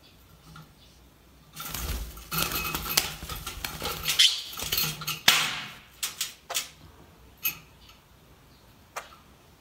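A small parrot and another bird scuffling on a steel perch stand: a rush of wing flaps and claws scrabbling and clattering on the metal perch and tray, starting about a second and a half in and lasting about four seconds, then a few sharp single taps.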